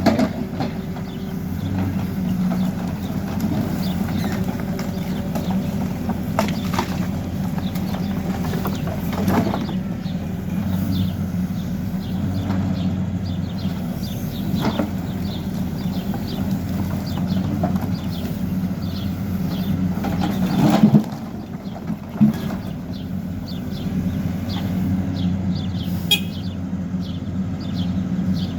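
Hidromek backhoe loader's diesel engine running steadily while working debris, with occasional knocks and clanks; the loudest knock comes about two-thirds of the way through.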